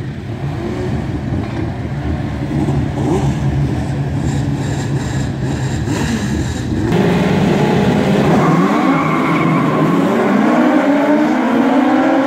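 A pack of Legends race cars, with four-cylinder motorcycle engines, running at low revs. About seven seconds in the sound gets louder and several engines rev up together, their pitches rising and overlapping as the cars accelerate away.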